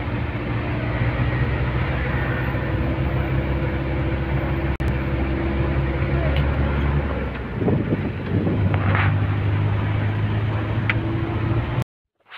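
A passenger van's engine and road noise, heard from inside the cabin while driving: a steady low drone whose engine note shifts about seven seconds in. It cuts off suddenly near the end.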